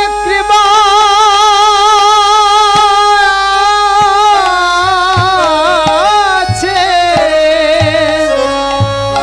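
A man singing a devotional kirtan line, holding one long wavering note that steps down in pitch about halfway through, with a hand drum beating steadily under the voice.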